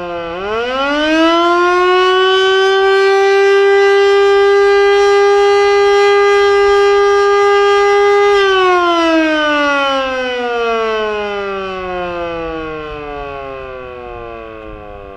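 Federal Signal Model 2 electromechanical warning siren sounding the attack signal, loud: the pitch dips, climbs back up over about two seconds, holds steady for about six seconds, then winds down in a long, even falling glide.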